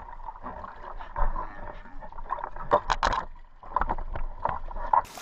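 Water splashing and sloshing around a landing net as a hooked landlocked salmon is scooped up and lifted out of the lake, with several sharp knocks of the net and its handle.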